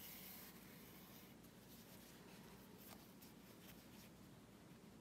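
Near silence, with faint rustling and a few soft ticks from hand-sewing: a needle and embroidery floss being drawn through a knitted doll's head.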